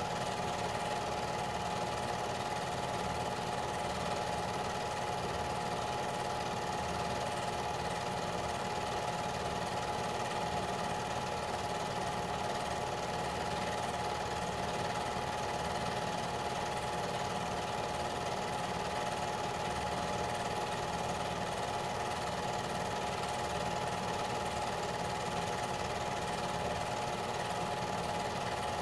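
Home-movie film projector running with a steady mechanical whir and a fine, fast flutter.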